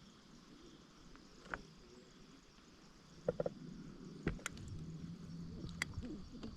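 Faint outdoor ambience with a few scattered small clicks and taps, and a faint low drone near the end.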